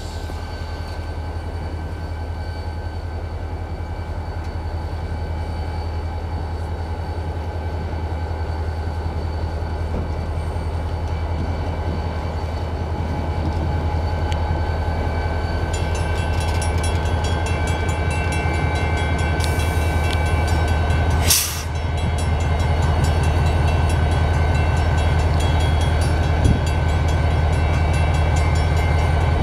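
EMD SD40-2 diesel-electric locomotive, with a turbocharged 16-cylinder 645 engine, rumbling steadily at low throttle as it creeps closer, growing louder. There is a short burst of hiss about two-thirds of the way through.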